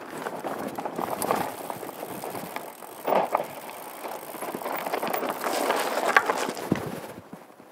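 Downhill mountain bike clattering over a loose, rocky gravel trail at speed, tyres crunching and the bike rattling, with harder knocks about three and six seconds in. It quietens near the end.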